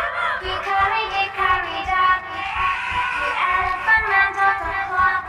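A children's nursery-song voice singing with music, heard as many overlapping copies at once, each at a different pitch, so the tune warbles and bends in arching glides.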